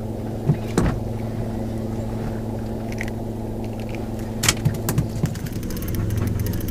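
Small boat's engine running steadily at low speed, getting a little louder about six seconds in. A few sharp knocks sound over it, just under a second in and again around four and a half to five seconds.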